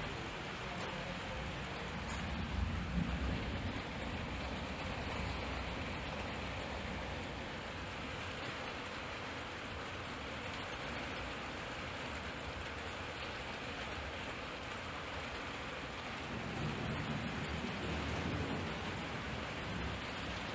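Heavy thunderstorm rain falling steadily, with low rumbles swelling about two seconds in and again near the end.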